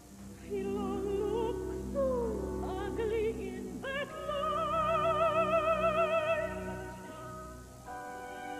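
Operatic soprano singing over a soft, low sustained accompaniment, with slides in pitch early on and, about four seconds in, a long held note with wide vibrato.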